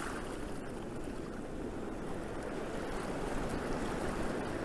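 Steady, low rushing outdoor ambience with no distinct events.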